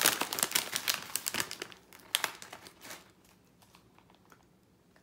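Plastic snack bag crinkling as a hand holds and moves it, with a quick crackle of many small clicks that thins out and stops about two and a half seconds in.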